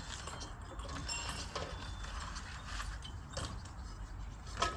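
Scattered light clicks and knocks of hand tools and small screws being handled while fitting the bell's slider, with one sharper click near the end.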